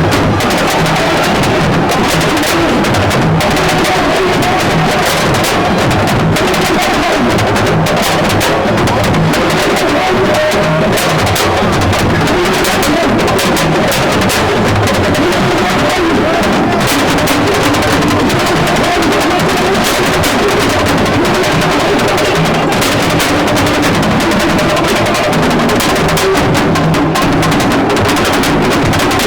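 Music led by dense, fast drumming, with drum strokes coming thick and steady throughout.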